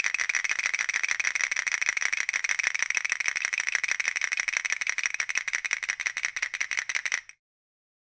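Spinner sound effect: a rapid, even train of rattling clicks that cuts off about seven seconds in.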